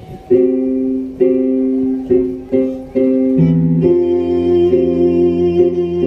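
Electronic keyboard playing a song's introduction: a few short struck chords, then held chords with a low bass line coming in about three and a half seconds in.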